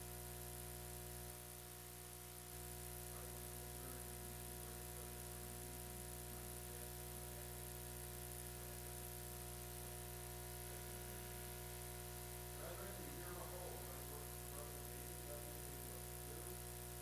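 A steady, faint hum made of several held pitches, with faint indistinct sounds about thirteen seconds in.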